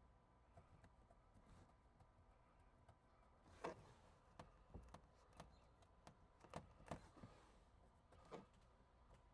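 Near silence with a scatter of faint, short scrapes and clicks from about the middle on: old double-sided mounting tape and its residue being picked and scraped off window glass.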